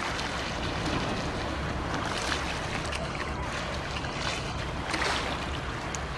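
Wind buffeting the microphone as a low rumble, over the steady wash of small waves at the river's edge, swelling softly a few times.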